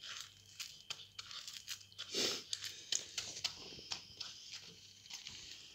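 A puppy chewing and crunching a piece of wafer ice cream cone, a run of short crisp crackles and clicks, with one louder brief noise about two seconds in.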